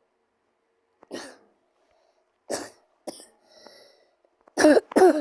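Cartoon character's voice making a series of short sneezing bursts: a few softer ones spaced apart, then the loudest two close together near the end.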